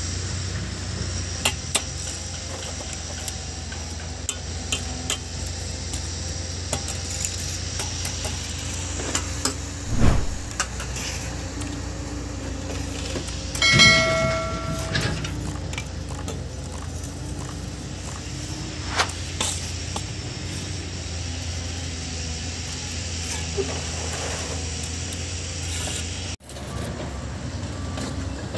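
Bricklaying work on concrete blocks: scattered sharp taps and knocks of a steel trowel on the blocks and mortar over a steady low rumble, with a heavier thud about ten seconds in. About fourteen seconds in, a short chiming sound effect plays with an on-screen subscribe animation.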